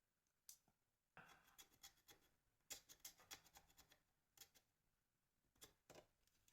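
Faint clicking and scratching of small plastic parts being handled and worked: a phone's camera button being fitted into a non-original body shell. The sounds come in short scattered clusters.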